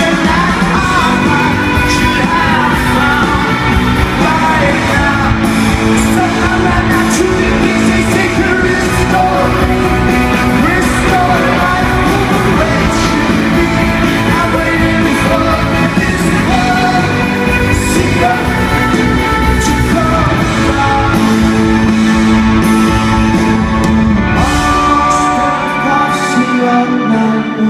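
Rock band playing live in concert, with sung vocals over guitars, bass and drums. Near the end the deep low end drops away.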